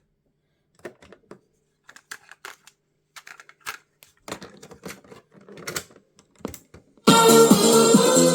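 Scattered light clicks and clacks from the plastic case and controls of a GoldStar TC-F31 radio-cassette boombox being handled, irregular and of varying loudness. Music starts abruptly about seven seconds in.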